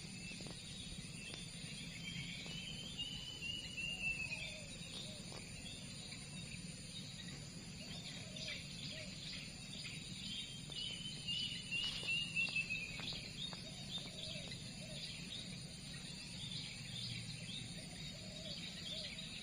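Birds chirping, with two longer chirping phrases that fall in pitch, one early and one about the middle, among scattered short chirps, over a steady high insect drone and a low hum.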